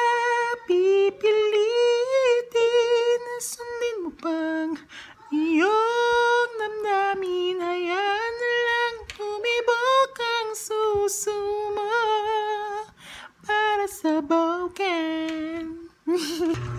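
A man singing unaccompanied in a high voice, holding long notes that waver, in phrases with short breaks between them.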